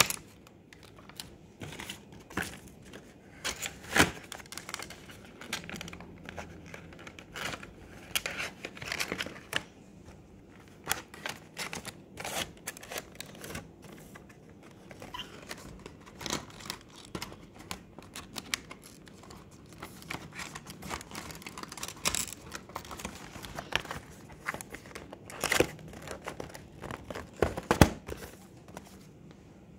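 Hands rustling and handling packs of stickers and their packaging: irregular crinkling with many small taps and clicks, and a few louder knocks.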